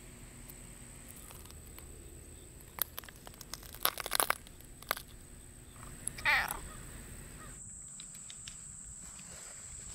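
A black domestic cat being petted: a cluster of scuffs and clicks around four seconds in, then one short call falling in pitch about six seconds in.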